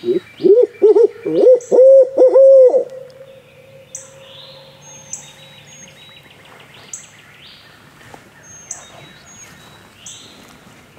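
Owl hooting: a loud, quick run of about eight rising-and-falling hoots over roughly three seconds, trailing off into a fainter drawn-out note. Small birds chirp in short, high calls every second or two afterwards.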